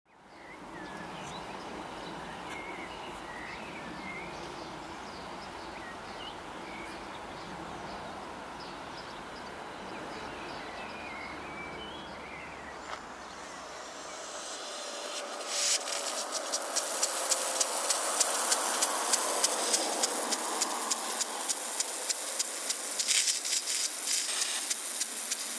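A quiet steady background with a few short chirps, then, about fifteen seconds in, an impact garden sprinkler comes in: the hiss of its water spray with sharp ticks about twice a second from its swinging arm.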